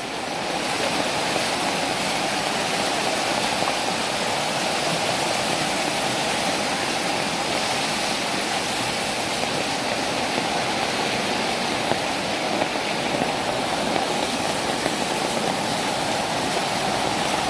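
Floodwater from a landslide rushing down a hill road like a river, a steady loud rush of water.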